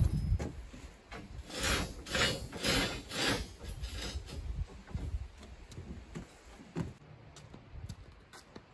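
Concrete blocks scraped and knocked as they are worked into place on the top course of a block wall: a run of short gritty scrapes, a few a second, that dies away about halfway through, with one sharp click later.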